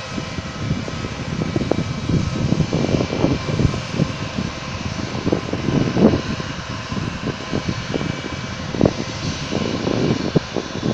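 Airliner taking off at takeoff power: a steady engine noise with a faint whine and irregular low crackle throughout.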